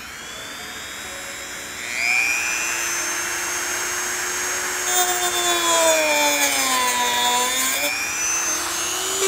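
Dremel rotary tool with a cutoff wheel winding up to a high steady whine, then grinding through the spoiler's plastic mounting tabs. A gritty cutting noise joins it about five seconds in, and its pitch sags under the load in the middle before picking up again near the end.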